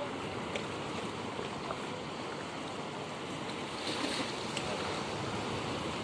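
Mediterranean sea surf: small waves breaking and washing onto the beach in a steady rush, swelling briefly about four seconds in.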